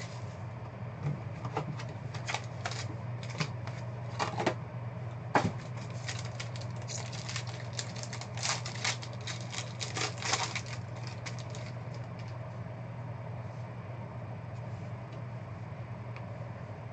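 Handling a trading-card hobby box and tearing into its foil-wrapped pack: irregular crinkles, rustles and clicks, busiest in the first ten seconds or so and sparse after that, over a steady low hum.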